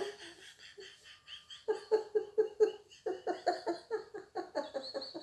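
A woman laughing hard in short, rapid, breathy pulses, about four or five a second, setting in about a second and a half in after a quieter start.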